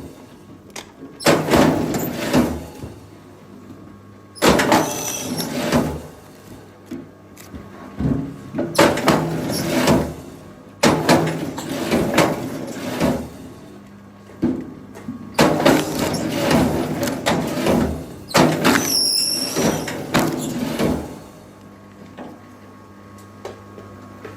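Repeated rough scraping and grinding bursts, each one to three seconds long with short pauses between, from timber being moved during logging work, over a steady low hum.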